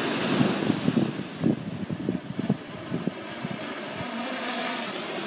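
Wind buffeting the microphone in irregular gusts over the steady wash of surf on the beach; the gusts ease off about three seconds in.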